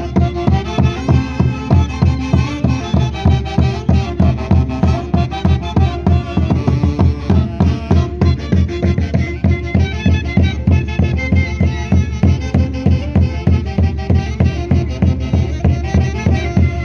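Live Santiago music from a Huancayo-style orchestra, with a steady, strong drum beat under melody lines.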